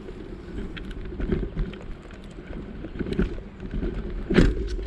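Wind rumbling on the microphone of a camera carried on the move, with scattered handling knocks and a louder thump near the end.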